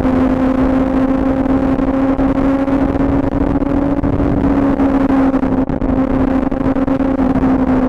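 Benelli motorcycle engine running steadily while riding along, its note holding nearly level and rising slightly, with wind rushing over the microphone.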